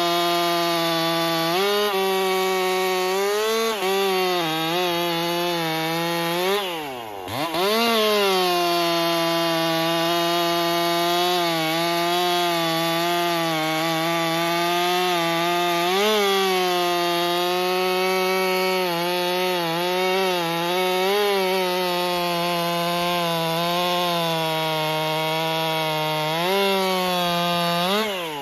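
Ported Stihl MS261 M-Tronic two-stroke chainsaw with a 25-inch bar cutting poplar at full throttle, holding a steady pitch under load with small dips as the chain bites. About seven seconds in, the revs drop sharply and pick up again. At the end the throttle is released and the engine note falls away.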